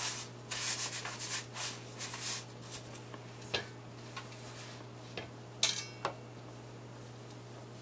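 Breadcrumbs being pressed and rubbed onto an egg-washed eggplant slice in a foil pan: a quick run of gritty rubbing strokes, then a few scattered light knocks, the sharpest about two seconds before the end with a short metallic ring as a hand works in a stainless steel bowl. A faint steady low hum lies underneath.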